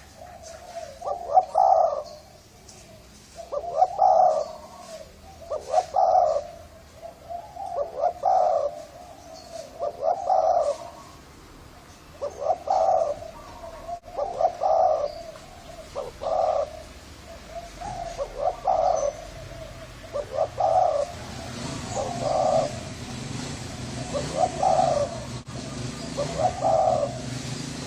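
Spotted dove of the Thai strain cooing with a deep, hoarse voice, the same cooing phrase repeated about every two seconds. A low hum comes up under the calls in the second half.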